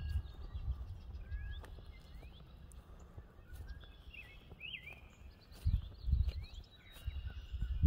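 Footsteps of a person walking on grass, as low thuds near the start and again from about six seconds in. Between and over them come high chirps and short whistled calls of birds.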